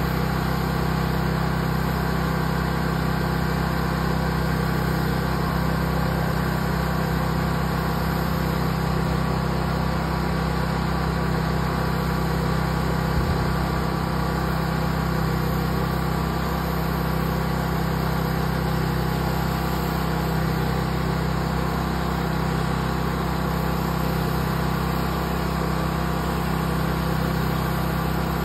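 Pressure washer's engine and pump running steadily under load while the wand sprays plain water, a constant engine drone with the hiss of the water jet over it.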